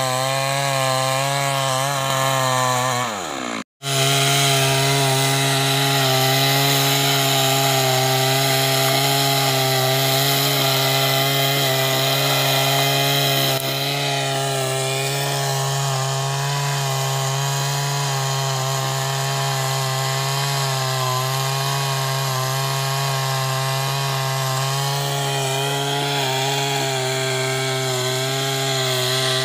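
Two-stroke chainsaw running at high revs, cutting lengthwise through a log. About three seconds in its pitch falls and the sound cuts out briefly; then it runs steadily under load again.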